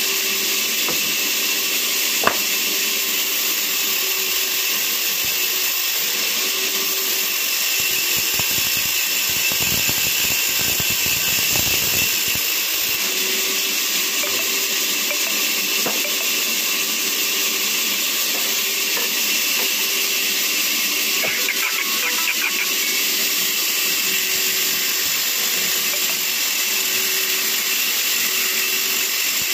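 Vertical band saw ripping a log lengthwise: a steady, loud, hissing machine noise of the running blade cutting through wood, with a single sharp click about two seconds in.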